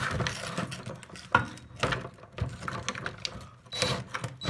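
Irregular metal clicks and rattles as the spring, socket and extension are fitted together and snugged up by hand.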